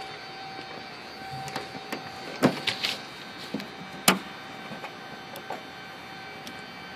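Clicks and knocks of the oil access door on a Piper Aztec's engine nacelle being unlatched and opened for an oil check, the loudest clicks about two and a half and four seconds in, over a steady hum.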